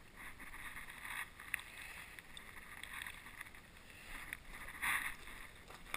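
Quiet handling noises as hands work a hook out of a halibut held in a mesh landing net: faint rustling with a few small clicks, and a brief louder rustle near the end.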